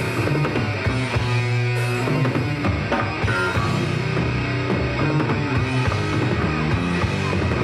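Live rock band playing amplified electric guitars over a drum kit.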